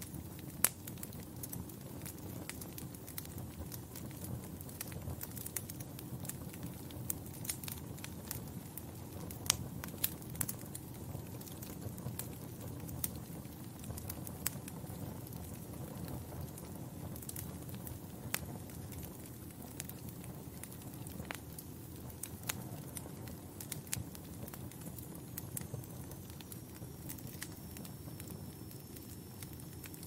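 Wood fire crackling: irregular sharp pops and snaps over a low, steady rumble of burning logs.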